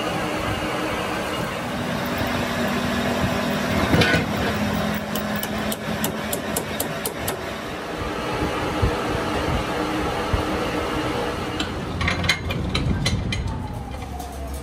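A machine running steadily, with a knock about four seconds in and two runs of sharp clicks, one soon after the knock and one near the end.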